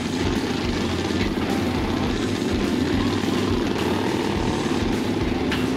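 Several Suzuki DR-Z400 single-cylinder four-stroke dirt bikes idling together, a steady low engine drone.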